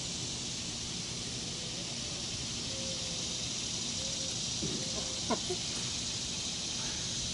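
Outdoor ambience in the grass: a steady high hiss over a low rumble, with a few faint bird calls, one of them a falling note, between about three and five and a half seconds in.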